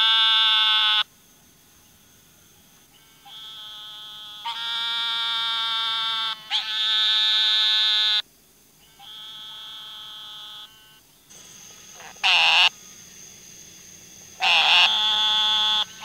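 A frog calling: a series of long, steady calls of one to two seconds each, some loud and some fainter, with two short, loud calls near the end.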